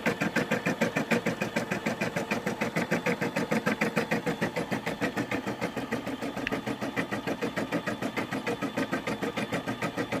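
Brother SE600 embroidery machine stitching a design through felt and stabilizer in the hoop, its needle going up and down in a fast, even rhythm of several strokes a second.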